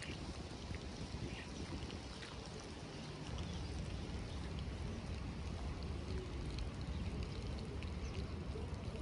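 Steady rain falling on wet stone paving, with scattered faint drip ticks and a low rumble underneath that grows slightly louder about three seconds in.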